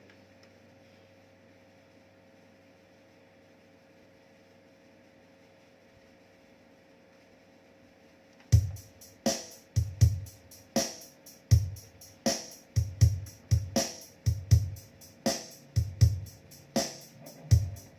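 Faint steady hum and hiss from a guitar rig for about eight seconds, then a drum-machine beat starts abruptly: kick and snare hits about every three quarters of a second, with lighter hits between. It is the kind of built-in rhythm pattern the Zoom G1Xon multi-effects pedal plays.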